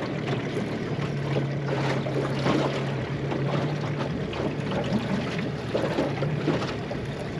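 Small outboard motor running at trolling speed, a steady low hum, under wind on the microphone and water splashing against the aluminium hull.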